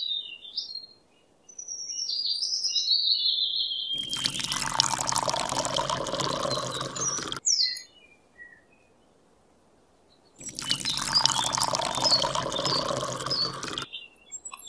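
Water poured from a small metal cup into a shallow plastic tub of water, twice, each pour about three seconds long. Several bird chirps come before the first pour, and one between the pours.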